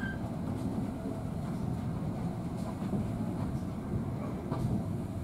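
Heritage railway carriage running along the track, heard from inside the carriage: a steady low rumble of wheels on rail with occasional faint clicks.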